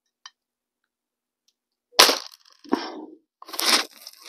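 Loud sudden cracks: one about two seconds in, a weaker one soon after, and a longer one near the end. They come from a Daisy 840 multi-pump air rifle being fired at a glass bottle, which is being hit and broken.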